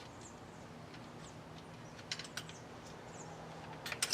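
A few faint, light clicks and taps of small metal parts and hand tools being handled at the engine, over a low steady hum, with a few tiny high chirps.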